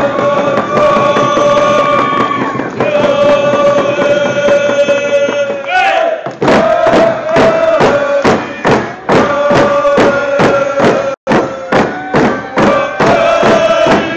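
Traditional Nuu-chah-nulth song by a group of singers. They chant long held notes, and about six seconds in drums join with a steady beat under the singing.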